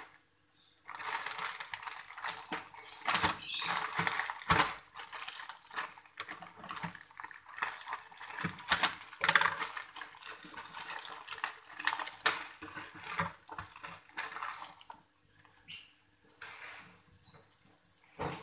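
Food frying in hot oil in a frying pan: steady sizzling with irregular crackles and sharp pops, quieter for the last few seconds.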